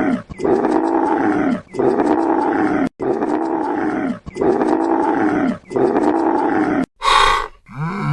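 Lion roaring over and over, about six deep, drawn-out roars of just over a second each in even succession. Near the end a different, higher call cuts in.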